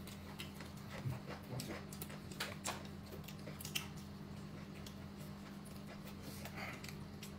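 Quiet eating at a table: scattered soft clicks of tableware and chewing noises, thicker in the first few seconds and sparser after, over a steady low hum.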